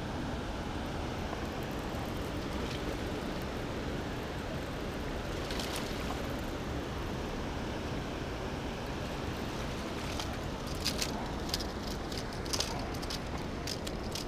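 Steady rushing noise of water pouring through a dam spillway, mixed with wind on the microphone. A few sharp clicks come near the end.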